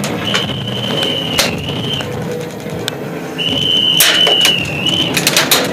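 Referee's whistle blown in two long steady blasts, signalling the end of the airsoft game. A few sharp clicks fall between the blasts, and a quick run of clicks starts near the end.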